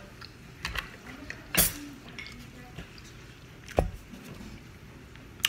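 Cutlery clicking and clinking against a dish a few times during a meal, with quiet chewing between. The two loudest clicks come about one and a half and four seconds in, the second with a dull knock.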